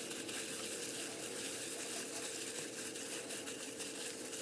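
Raw fish pieces being mixed by hand in their marinade: soft wet squishing and small crackly ticks, with a faint steady hum underneath.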